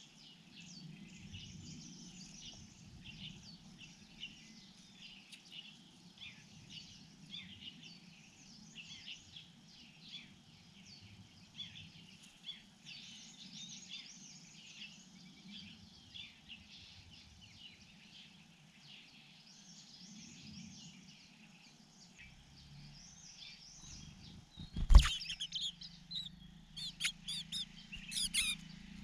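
Birds chirping faintly and continuously in a run of short high calls. Near the end, a single loud sharp knock is followed by a cluster of louder, sharper chirps and clicks.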